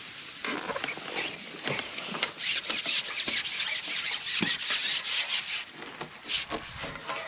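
A Maver carbon fishing pole being shipped, sliding and rubbing through the angler's hands: a rapid run of rasping scrapes, loudest in the middle.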